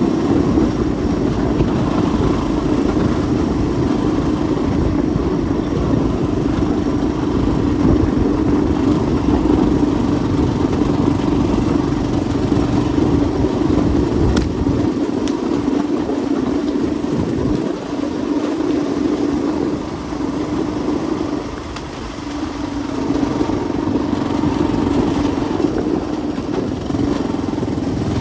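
An engine running steadily with a constant droning hum over a low rumble. It dips slightly in loudness about three-quarters of the way through.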